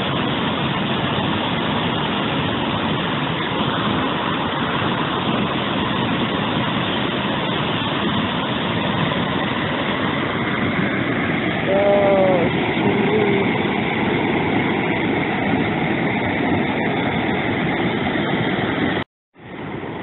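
Waterfall rushing as a steady, even noise, with a short pitched sound about twelve seconds in. The sound cuts out for a moment near the end.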